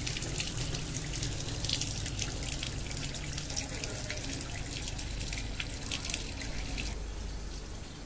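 Water running from an open tap and splashing into a tiled trough; the splashing stops suddenly about a second before the end, leaving a faint low hum.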